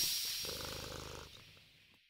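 Cat purring sound effect, a low pulsing purr under a hissing noise that fades away to near silence by the end.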